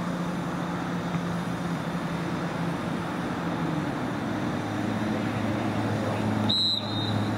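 A referee's whistle blows two short, high blasts near the end. Underneath is a steady low mechanical hum that drops in pitch about four seconds in.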